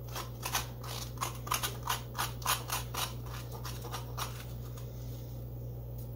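A serrated grapefruit spoon scraping seeds and stringy pulp from the inside of a halved acorn squash, in quick repeated strokes about three a second. The strokes stop about four seconds in.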